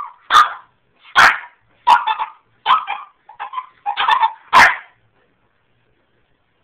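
Boston terrier–French bulldog puppy barking, about seven short, sharp barks over five seconds, then stopping. The puppy is left at the top of stairs it is still too small to come down.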